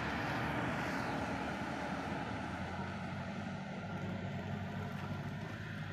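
Engines and tyres of a loaded pickup truck and a motorcycle driving away around a bend, a low rumble that slowly fades.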